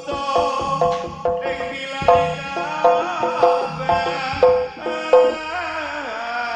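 Javanese gamelan accompaniment for barongan: struck metal keyed instruments repeat short ringing notes over hand-drum strokes. A sliding, wavering melody line comes in near the end.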